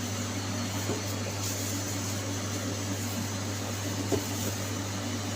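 Steady low mechanical hum of shop equipment, with a couple of faint light taps about a second in and again near four seconds.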